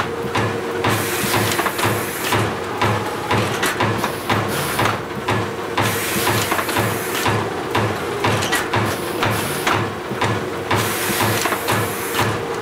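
FAS TW475 turret winder with TU2201 tape unit running: a steady machine hum with an even low pulse about two to three times a second and frequent sharp clicks and clacks.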